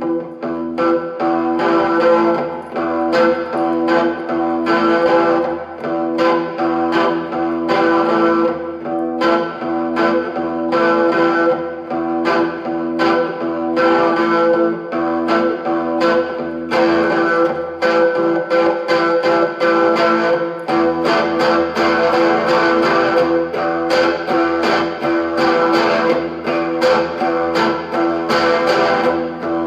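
Electric guitar played through a 1960s Supro Super amplifier, a steady stream of picked notes and chords ringing over sustained tones.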